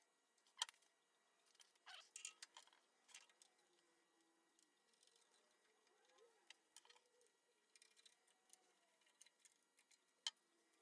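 Faint, scattered small clicks and taps as plastic pneumatic air-line tubing is handled and routed, with a cluster of clicks about two seconds in and a sharper single click near the end.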